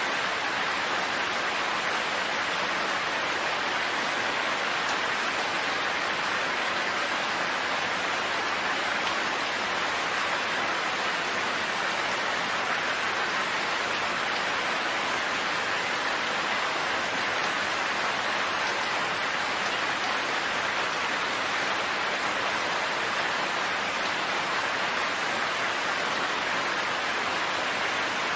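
Steady, even rain falling, a continuous dense patter with no distinct single drops or thunder.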